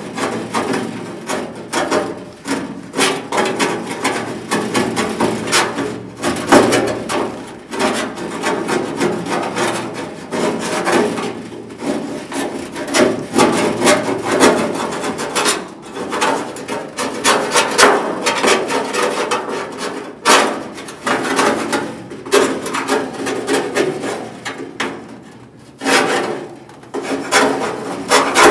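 Hand tool scraping along the bare sheet-metal inner panel of a truck door in quick, uneven strokes, with a short lull near the end.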